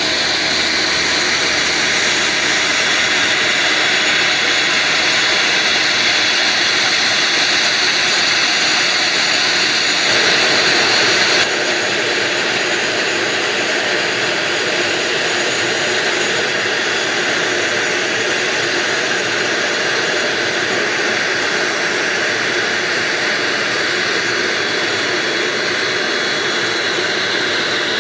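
Aircraft turbine engines running with a steady loud rushing whine; the high part of the whine eases slightly about eleven seconds in.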